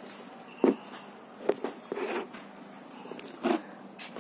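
Handling noise from the phone doing the filming as it is moved and set in place: a few short, sharp knocks and rustles at irregular moments over a faint hiss.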